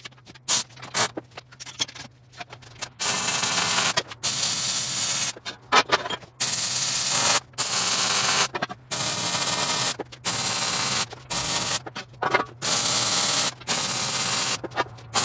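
Miller 252 MIG welder welding a steel rectangular-tube frame: about ten short welds of roughly a second each, the arc's even crackling hiss starting and stopping between them. A few light taps and clicks come first.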